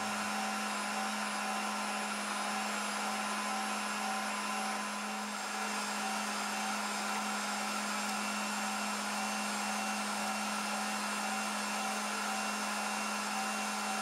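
Electric meat grinder running steadily while meat and back fat are pushed through and ground, its motor giving a constant hum with several higher steady tones above it.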